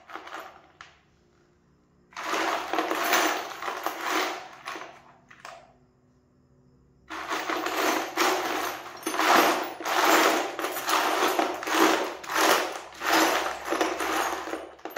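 Loose steel bolts, screws and nuts clattering and jangling in a tub as a hand rummages through them. The clatter comes in two long spells, the second starting about seven seconds in.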